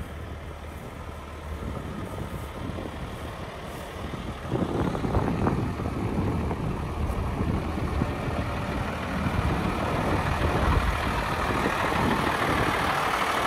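Isuzu truck's diesel engine idling steadily, growing louder about four and a half seconds in and again toward the end.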